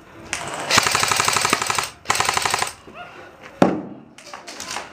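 Airsoft electric rifle firing on full auto: a burst of rapid, evenly spaced shots lasting about a second and a half, a shorter burst right after, and a single sharp crack about a second later.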